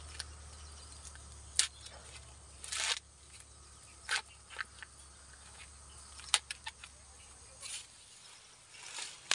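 Dry husk of a small corn ear rustling and crackling as it is peeled back by hand, in a dozen or so short, sharp crackles.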